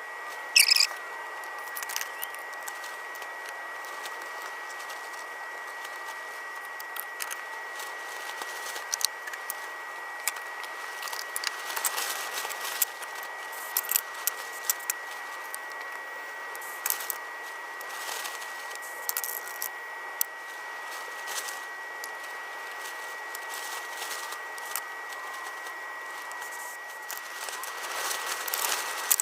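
Scattered light clicks, taps and clinks of small metal lantern parts being handled on a workbench, over a steady thin high whine.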